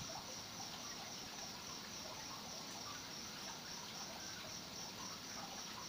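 Faint, steady insect chirping: a high-pitched trill pulsing evenly about four to five times a second.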